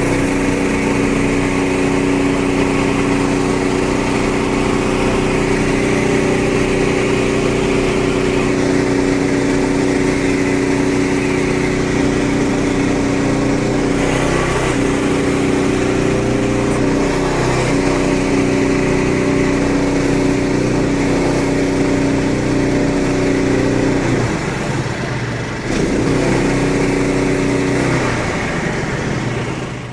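Gas engine of a Frontier OS23 portable bandsaw mill running steadily at speed as the band blade saws through a tulip poplar log, its pitch sagging a couple of times under load. The blade is worn and starting to slip, making the cut hard to push. The sound cuts off near the end.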